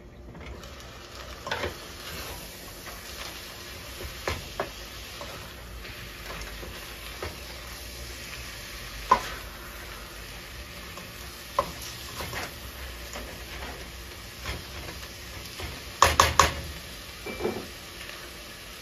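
Ground beef with diced onion and red bell pepper sizzling steadily in a stainless steel pot while a spatula stirs and scrapes it. Scattered knocks of the spatula against the pot, with a quick cluster of louder knocks near the end.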